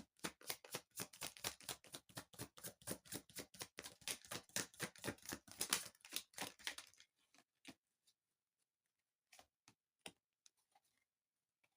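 A rapid run of light clicks and taps, about five or six a second, that stops about seven seconds in, followed by a few scattered clicks.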